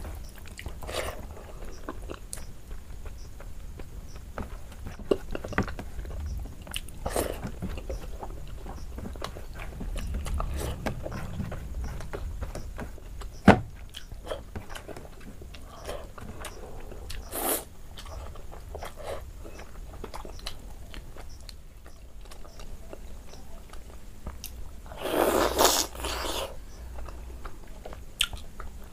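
Close-miked eating sounds of a person chewing rice and chicken curry eaten by hand: scattered wet smacks and small clicks of the mouth, with one sharp click about halfway and a louder wet mouth noise a few seconds before the end.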